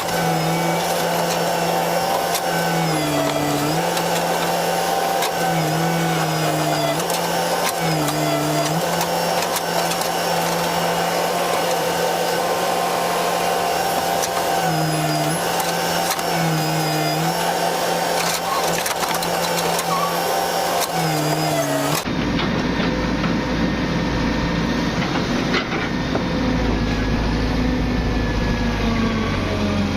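Excavator engine and hydraulics running steadily under load, the engine note dipping briefly every two seconds or so as the machine works. About two-thirds of the way in the sound cuts abruptly to a lower, rumbling engine sound.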